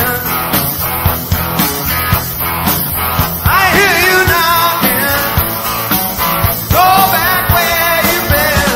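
Live rock-and-roll band playing, drums keeping a steady beat under a lead line that bends up and down in pitch twice, about halfway through and again near the end.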